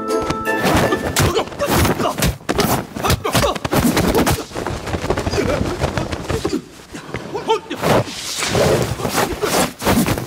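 Staged martial-arts fight sound effects: a dense run of punch, kick and crash impacts with whooshes, mixed with shouts and grunts. Background music cuts off about half a second in.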